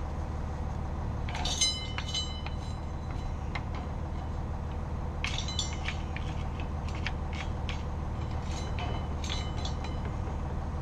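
A hand brush scrapes and knocks against the metal foot of an RV leveling jack to clear off debris. It comes in three bouts of ringing metallic clinks, over a steady low hum.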